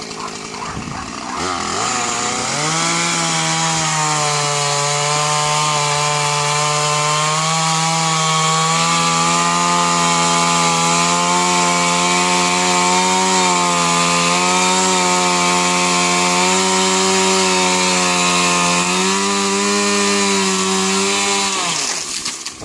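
Chainsaw engine revving up about two seconds in and running at high speed, its pitch wavering slightly as it cuts wood, then shutting off near the end.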